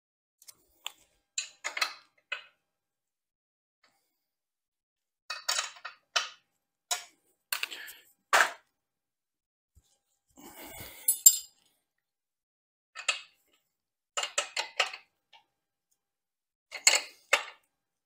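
A wrench clinking against a motorcycle's chain adjuster jam nuts as they are tightened: short clusters of metallic clinks and taps with pauses between.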